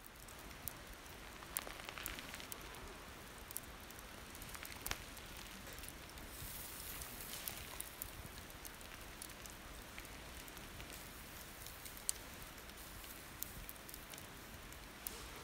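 Charcoal fire crackling under pork sizzling on a wire mesh grill: a steady hiss with scattered sharp pops, one of the loudest about twelve seconds in.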